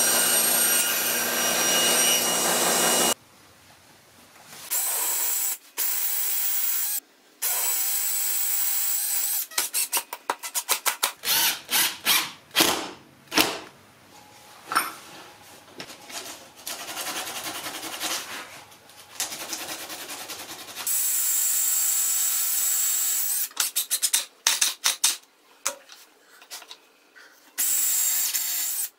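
Table saw running through a cut, shutting off about three seconds in. Then a Makita cordless drill runs in several short bursts, with a long stretch of sharp clicks and knocks of wood and clamps being handled in between.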